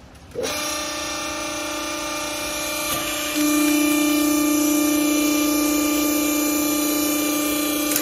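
Hydraulic clothing baler's electric motor and pump starting about half a second in and running with a steady hum as the press platen lifts off the strapped bale. The hum steps up louder a little over three seconds in and holds.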